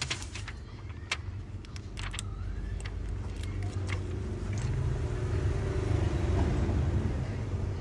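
A low rumble, engine-like, that swells about halfway through, under a scatter of small clicks and taps in the first half from fingers handling the phone's glass display and its plastic protective film.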